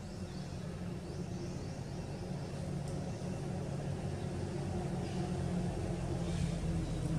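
A motor vehicle's engine running, a low steady rumble that grows gradually louder.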